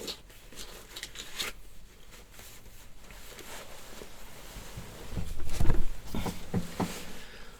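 Rustling and handling noise close to the microphone. There are a few sharp clicks in the first second and a half, and a louder bout of low, rumbling rustle about five to seven seconds in.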